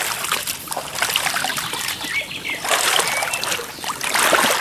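Water splashing close by, with a couple of short bird chirps about halfway through.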